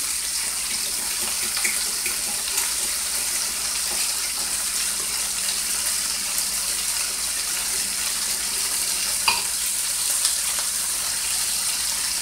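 Steady hiss of browned beef short ribs with sliced onions and green peppers sizzling in a skillet on the stove, with a few faint clicks and one sharper click about nine seconds in.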